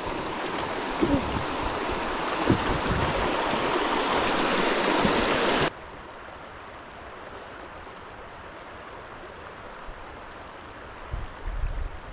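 Rushing river water, a loud, even flow with a few low bumps, cut off abruptly about six seconds in. A much quieter, steady flow of water follows.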